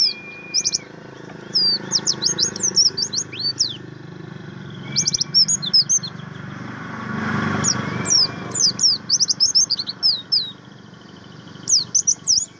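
White-eye (pleci, the 'buxtomi' type) singing in fast phrases of high, sweeping chirps, about five bursts separated by short pauses. A soft rush of noise swells and fades around the middle.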